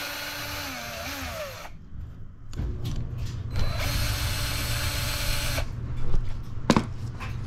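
A power tool on a long socket extension runs twice, first for about two seconds and then about three, with a steady motor whine that sags in pitch near the end of the first run. It is backing out the 8 mm bolts of the ignition pickup on a Honda XR200 cylinder head. A sharp click comes about a second after the second run.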